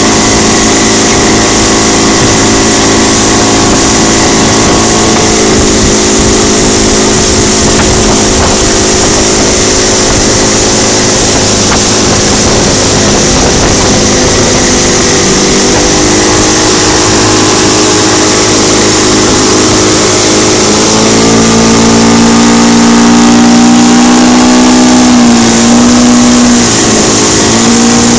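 Johnson 115 outboard motor running at speed under load, towing two tubes. Its pitch steps down a few seconds in, rises and gets louder about three quarters of the way through, then dips briefly twice near the end as the throttle is eased and opened again. Wind and rushing water from the wake lie underneath.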